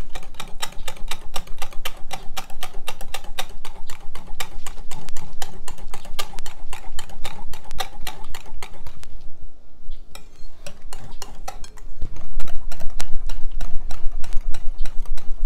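A ricotta batter being beaten by hand in a glass bowl: quick, even strokes of a utensil clicking against the glass at about five a second. There is a brief pause about nine seconds in, and the strokes are louder again from about twelve seconds.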